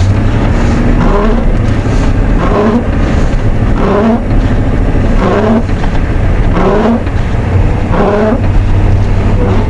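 1990 Ford F250's 7.3L IDI diesel engine running steadily while the truck drives through snow. Over it, a short rising squeak repeats about every second and a half.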